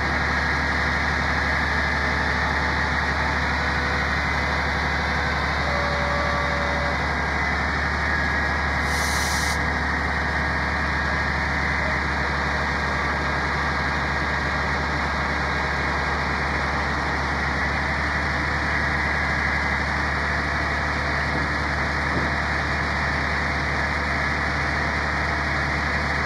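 Grapple truck's engine running at a steady speed while the loader works, with a steady higher whine over the drone. About nine seconds in there is a short hiss.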